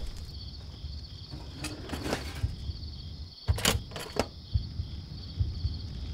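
Sharp metallic clicks and clacks of a tripod-mounted machine gun being handled and readied, the loudest pair about halfway through. Beneath them, a low ambient rumble and a faint, evenly pulsing high chirp.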